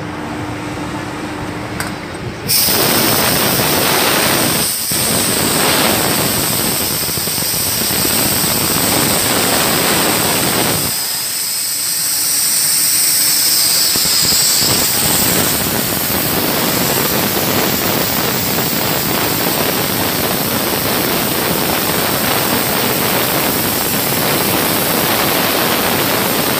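Compressed air hissing steadily into a marine diesel cylinder head, used to test its lapped intake and exhaust valves for leaks. It starts suddenly a couple of seconds in, drops out for a moment near five seconds and runs softer for a second or two a little before the middle.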